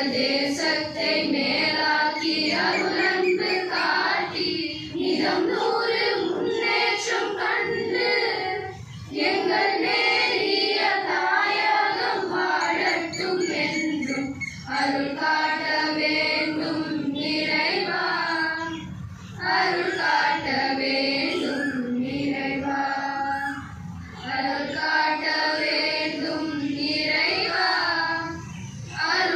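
A school choir of children singing together, in sung phrases of about four to five seconds with short breaks between them.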